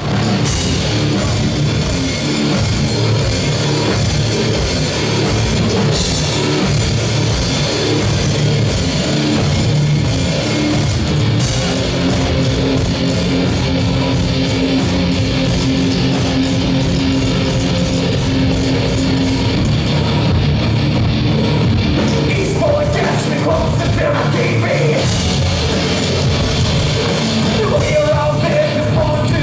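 Live rock band playing loudly: guitars and drums with a steady ticking cymbal beat, a long held note through the middle, and a singer's voice coming in over the last few seconds.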